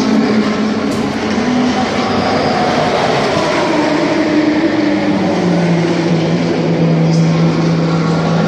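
Renault RS01 FGT3 racing car's twin-turbo V6 engine running steadily while the car stands at a pit stop. Its held pitch steps down lower about five seconds in.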